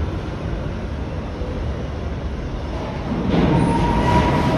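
NYC subway refuse train rolling slowly through a station with a steady low rumble. About three seconds in, as an R42 car draws alongside, the rumble grows louder and a thin, steady wheel or brake squeal joins it.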